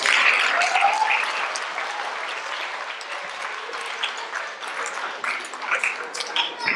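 Theatre audience applauding, loudest at the start and dying down over the next few seconds, with a few voices among the clapping.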